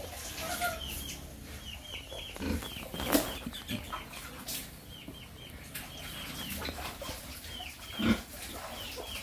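Chickens cheeping in a steady run of short, high chirps, with two louder sudden sounds about three and eight seconds in.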